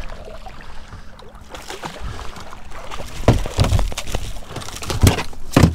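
Hooked king mackerel splashing at the water's surface beside a small fishing boat. In the second half come a series of knocks and thumps, the loudest near the end, as the fish is swung aboard onto the deck.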